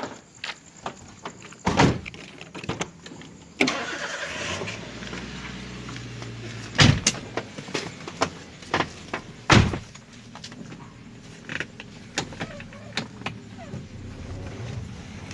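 People getting into a car and setting off. Several loud thuds of car doors shutting are heard among smaller knocks and clunks, with a low engine hum from about four seconds in.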